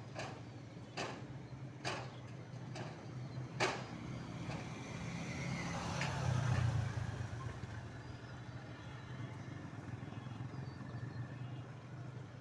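A motor running steadily, with five sharp knocks about a second apart in the first four seconds and a louder, deeper swell about six seconds in.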